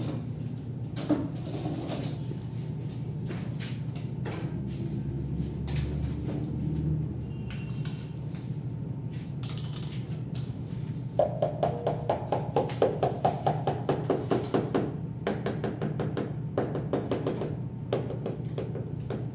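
Rubber mallet tapping a ceramic wall tile into its bed of tile adhesive: a quick, even run of knocks, about three a second, lasting several seconds in the middle. Before it come scattered knocks and scrapes as the tile is handled, over a steady low hum.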